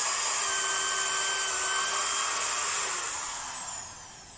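Corded electric drill running steadily as its bit bores into a wooden plank, then released about three seconds in, its whine falling in pitch as the motor spins down.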